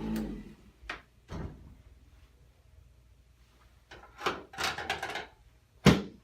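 A handheld massager's motor hum cuts off at the start, followed by scattered knocks and clacks on a chiropractic treatment table as the patient is positioned for a low back adjustment. The loudest is a sharp clack near the end.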